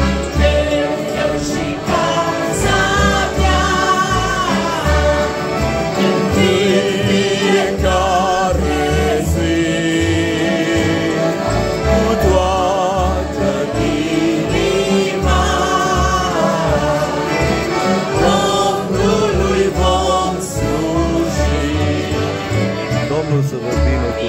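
Christian hymn sung by a group of voices, a woman's voice with vibrato leading into a microphone, accompanied by two piano accordions and acoustic guitars with a steady low bass beat.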